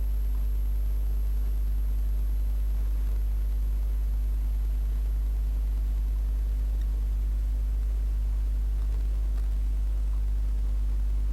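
Steady low electrical hum with a faint hiss, unchanging throughout: the background noise of the microphone and recording setup.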